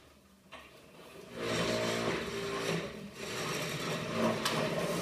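A desk dragged across a hard floor, its legs scraping with a grinding squeal, starting about a second and a half in.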